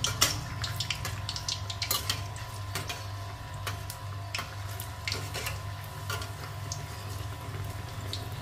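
Semolina malpua batter deep-frying in hot oil in a brass kadhai: an irregular crackling and popping sizzle, with sharp taps of a metal utensil against the pan, the loudest just at the start. A steady low hum runs underneath.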